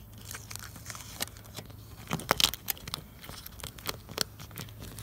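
3M aluminium foil tape crinkling and crackling as it is handled and its paper backing is peeled off by hand: a run of irregular sharp crackles, loudest about two and a half seconds in.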